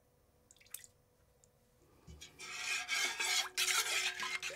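A few faint ticks, then from about two seconds in a utensil stirring liquid in a stainless steel pot, scraping and knocking against the metal.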